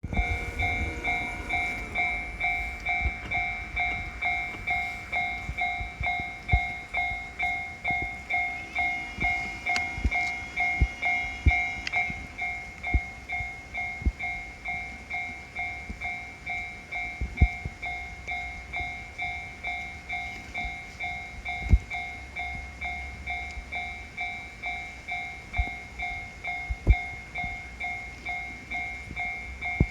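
Japanese level-crossing alarm ringing its electronic 'kan-kan' bell, a steady ding repeating about twice a second. A low rumble fades out over the first two seconds, and an extra higher tone sounds for a few seconds about a third of the way through, with a few sharp knocks scattered through.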